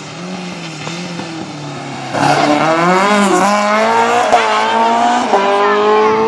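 Rally car passing close at speed: its engine gets suddenly louder about two seconds in, the pitch dips and rises through gear changes, then climbs steadily as it accelerates away.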